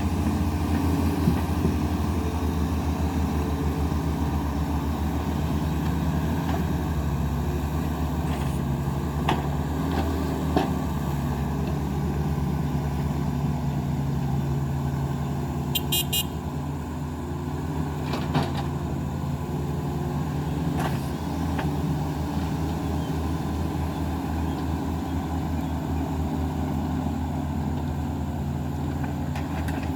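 Excavator's diesel engine running steadily under a low hum, with a few sharp metallic knocks scattered through it. A brief run of rapid high-pitched ticks comes about halfway.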